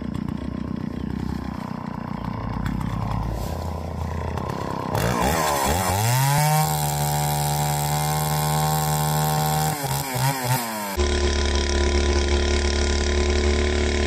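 Two-stroke chainsaw running at low speed, then revved up about five seconds in and held at a steady high pitch at full throttle while cutting through a log. It dips briefly near ten seconds, then runs at speed again.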